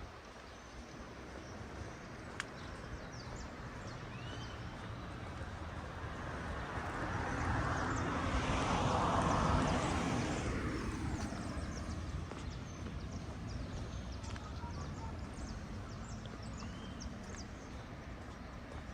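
A road vehicle passing by: its sound builds over several seconds, peaks about halfway through and fades again, dropping in pitch as it moves away.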